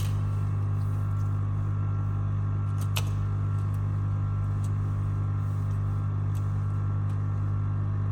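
A steady low hum at an even level, with a faint click right at the start and another about three seconds in.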